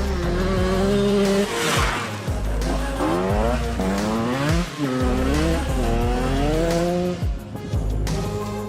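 KTM EXC 125 two-stroke enduro engine revving, its pitch rising and falling several times as the bike accelerates and backs off, over a background hip-hop beat.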